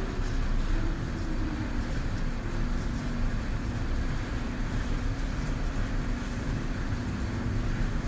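Daikin FTNE50MV14 split air conditioner running: a steady airflow noise with a faint low hum.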